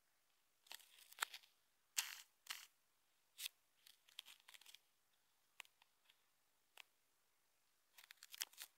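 Faint, irregular clicks and taps, some single and some in quick clusters, with a busier run of clicks near the end: fingers tapping on and handling a phone's touchscreen.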